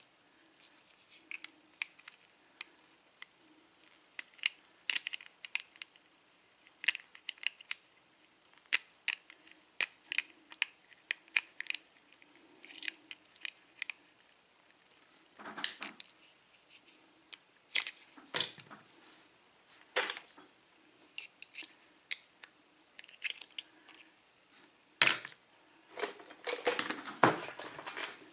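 Small metal tool clicking and scraping against a lock cylinder's plug and retaining clip as the clip is worked off, in scattered sharp ticks, with a louder, denser rattle of scraping near the end.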